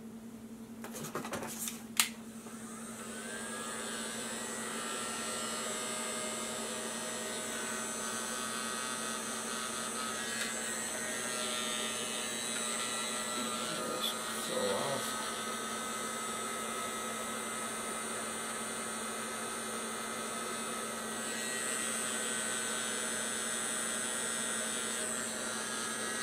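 Handheld electric heat gun switched on with a sharp click about two seconds in, then running steadily: a fan motor hum with a rush of hot air, used to shrink heat-shrink tubing over soldered wire joints.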